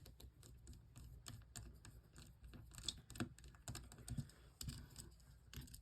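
Faint, irregular small clicks and taps of hand tools on the plastic and metal parts of a smartphone being taken apart.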